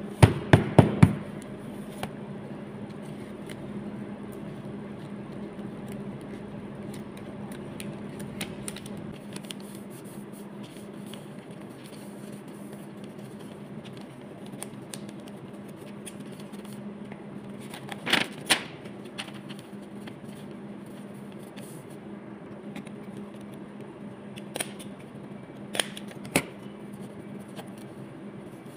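Printed sticker sheets being handled and separated: crisp paper clicks and crackles. They come as a quick run of four at the start, a pair about two-thirds of the way in, and a few more near the end, over a steady low hum.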